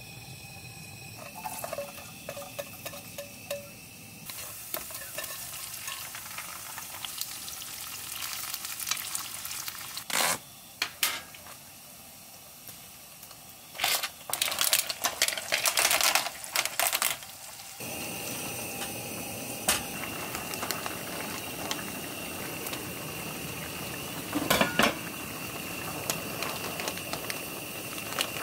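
Food sizzling in a pan, with utensils stirring and clattering against the cookware in several loud bursts partway through.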